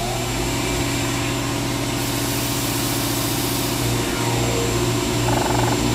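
An electric motor running steadily with a strong low hum and several steady tones above it.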